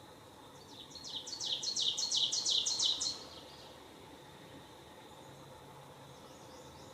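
A songbird sings a quick run of about a dozen repeated high, down-slurred notes that grow louder and then stop. A faint steady high hum of outdoor background sound lies behind it.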